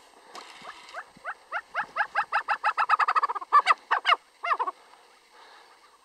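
Snowcock calling: a series of rising notes that speed up into a rapid run, then a few louder, drawn-out notes that end about four and a half seconds in.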